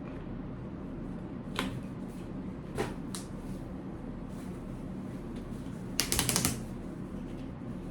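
Plastic and metal parts of a baby stroller clicking as it is handled: a few single sharp clicks, then a quick rattle of clicks about six seconds in, over a steady low hum.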